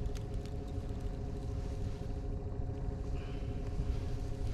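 Boat motor running steadily at trolling speed: a low rumble with a constant hum, with a few faint clicks about half a second in.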